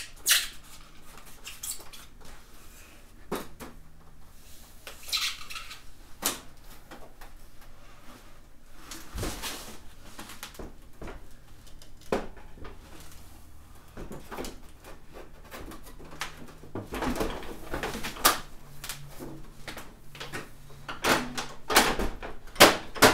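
The plastic housing of a mini-split indoor unit being hung on its wall mounting plate: scattered knocks, clicks and rustling scrapes as it is fed over its line set, hooked on and pushed into place. The loudest clunks come near the end.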